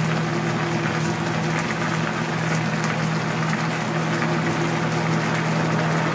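Pan of tteokbokki in chili sauce boiling on the stove, a steady bubbling hiss with many small pops over a steady low hum.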